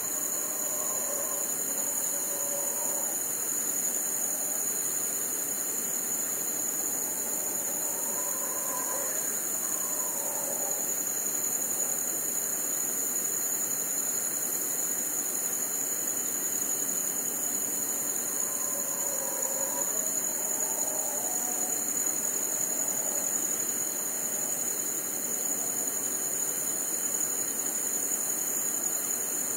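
Dense chorus of crickets, a steady high shrill that never lets up, with faint distant roars of howler monkeys rising and falling underneath three times: near the start, about a third of the way in, and again around two thirds in.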